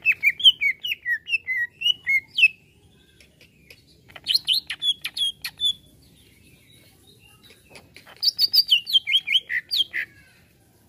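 Greater green leafbird (cucak ijo) singing: three bursts of quick, varied chirping phrases, one at the start, one about four seconds in and one about eight seconds in.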